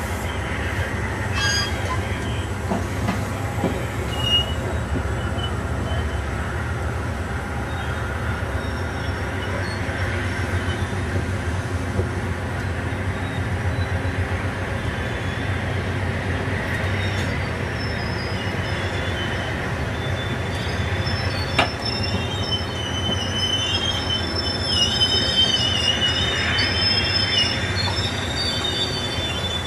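Amtrak passenger train's stainless-steel cars rolling past, with a steady low rumble of wheels on rail. From about halfway the wheels start squealing in thin high tones, which are strongest near the end.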